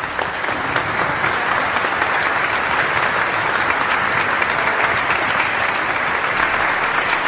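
Applause from many clapping hands, loud and dense, swelling over the first second and then holding steady.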